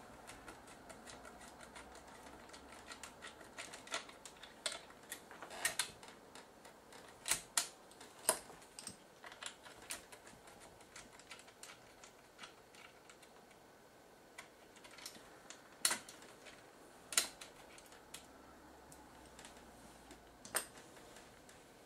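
Small irregular clicks and ticks of a screwdriver turning screws out of a Sony DSR-PD170P camcorder's side casing, with handling knocks and small screws set down on the bench mat. A few louder clicks are scattered through.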